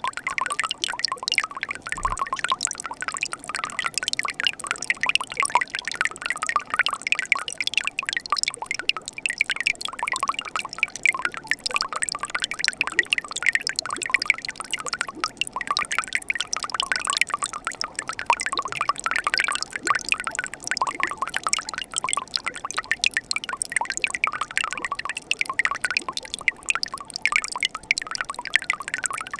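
Winter mountain stream running over rocks beside ice: a steady babble of small splashes and bubbling water.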